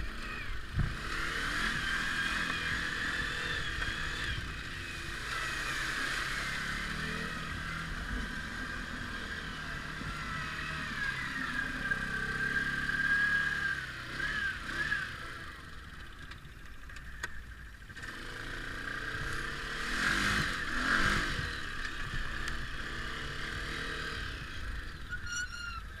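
ATV engine running while being ridden, revving up and easing off several times, louder about halfway and again near the end.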